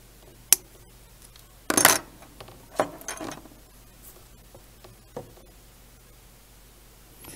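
Small metal tools and parts being handled on a workbench: a sharp click, then a few short clinking, rattling clatters.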